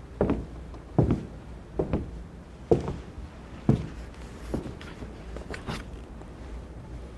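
A woman's slow, even footsteps on a stage floor, about one step a second, growing fainter over the last couple of seconds, over a low steady hum.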